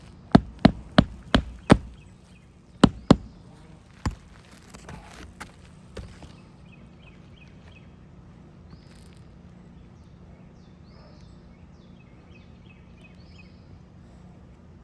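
Hammer driving roofing nails: five quick blows at about three a second, then two more, a single one and a lighter tap near six seconds. After that, faint outdoor background with brief bird chirps.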